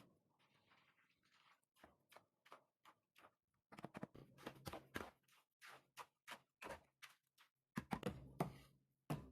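A quiet, irregular series of short taps and knocks, coming in clusters of several a second.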